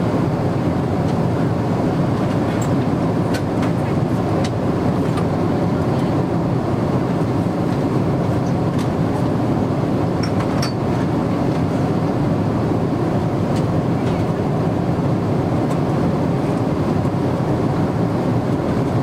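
Steady in-flight cabin noise inside a Boeing 777-300ER airliner: an even, low rushing of airflow and engines, with a few faint ticks.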